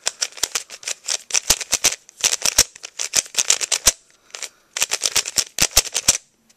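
Plastic 3x3 puzzle cube being turned quickly by hand: rapid runs of sharp clicks as the layers snap round, with short pauses about two seconds in, about four seconds in and near the end.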